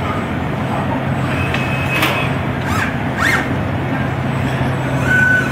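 VB25 electric CNC tube bender's servo drives running as it bends a tube into a coil: a steady low hum with several short rising whines, and the hum stops near the end.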